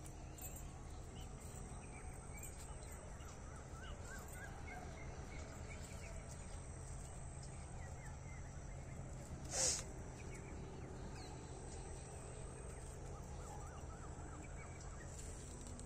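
Small birds chirping here and there, with a crow cawing once loudly near the middle, over a faint steady low hum.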